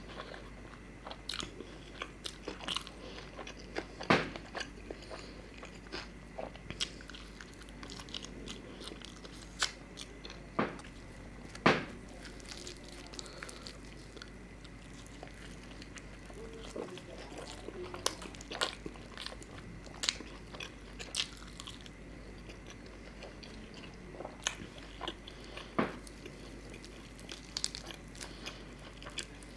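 Close-miked eating: chewing and wet mouth clicks and smacks as paratha soaked in chicken curry and tandoori chicken are bitten and chewed. Sharp clicks come irregularly throughout, the loudest about four and about twelve seconds in.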